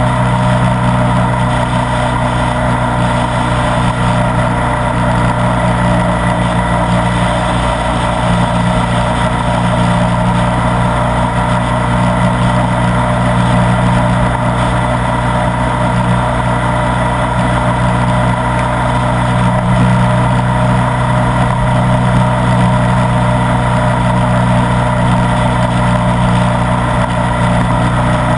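Ducati Multistrada 1200 S's L-twin engine running steadily at a constant cruising speed, with no revving or gear changes.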